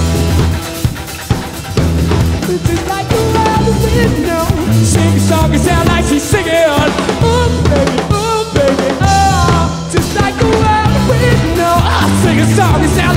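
Rock band playing live: drum kit, electric bass and electric guitar, the drums most prominent at first, then a wavering, bending lead melody over the band from about three seconds in.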